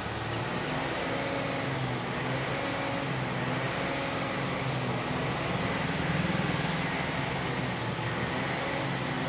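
A motor vehicle engine running steadily, with a low hum over road noise.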